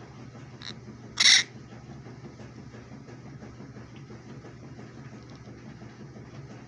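Parrot giving a faint short call, then a loud harsh squawk about a second in, over a steady low hum.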